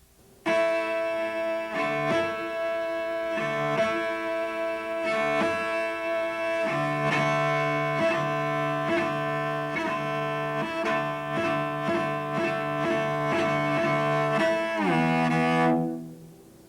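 Solo cello playing a bowed double-stop exercise high on the fingerboard, for the snap of the left thumb: one high note is held steady while the lower notes change, at about two notes a second in the second half. Near the end both notes slide down together, and the playing stops.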